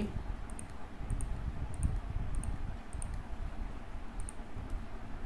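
Light computer clicks from entering data in software, mostly in quick pairs, recurring about every half second to second over a low steady background rumble.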